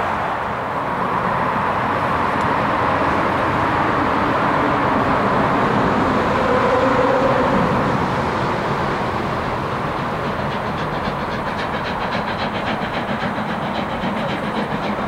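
Steam-hauled special train approaching on a mountain line: a continuous rumble that swells about halfway, then a fast, regular beat from about two-thirds of the way in.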